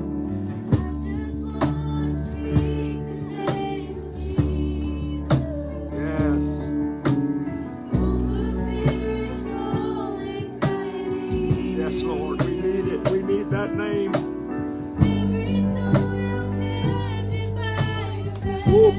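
Live worship band playing a slow song: electric bass, acoustic guitar and keyboard over a steady cajón beat of just under one hit a second, with voices singing.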